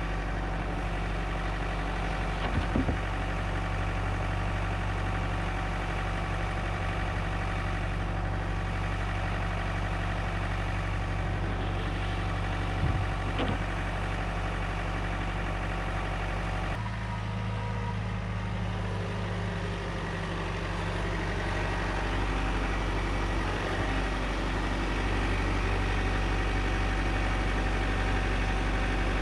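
John Deere 4066R compact tractor's diesel engine idling steadily, with a couple of light knocks. The engine note shifts about halfway through.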